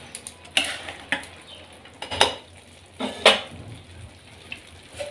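A steel spoon stirring boondi soaked in sugar syrup in a nonstick pan, in a few separate scrapes and knocks against the pan.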